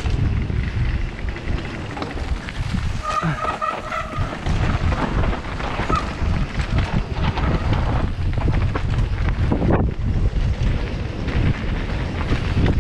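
Wind buffeting the microphone of a camera riding down a rough trail, with steady rumbling and rattling from the bumps. A brief high squeal comes about three seconds in.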